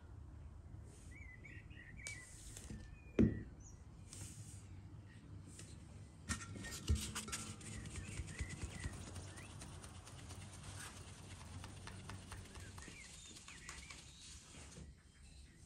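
Flour being sifted through a round wooden-rimmed sieve into an enamel basin: from about six seconds in, a rapid, steady patter and rattle as the sieve is shaken, fading out near the end. Before it there is a single sharp knock, and birds chirp faintly in the background.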